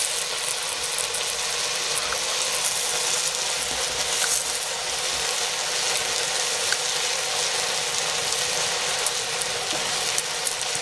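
Freshly added leafy greens sizzling in a hot black iron wok over a wood fire: a steady hiss with a few faint pops.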